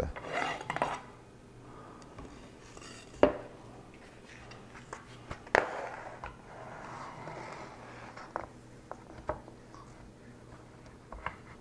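A roll of photo paper being handled and slid onto a wooden dowel spindle: soft rustling and scraping, with sharp knocks about three and five and a half seconds in.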